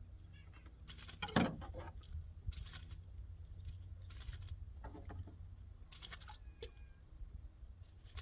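Crappie being cleaned with a knife on a table: irregular scraping, crunching and tapping as the blade cuts through the fish, over a low steady hum.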